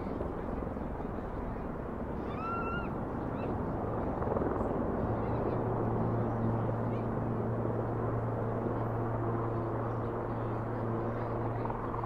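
Air ambulance helicopter droning in the background over a wash of distant city noise, its steady low hum getting stronger about five seconds in. A bird chirps briefly about two and a half seconds in.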